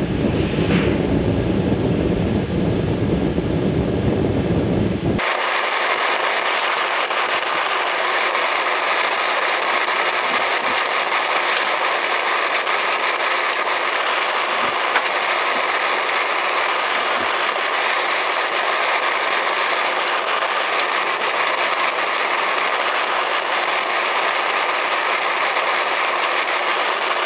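Steady hiss of a small gas forge's burner. For the first five seconds a deeper rumbling noise covers it, then that cuts off abruptly and the even hiss goes on alone, with a few faint ticks.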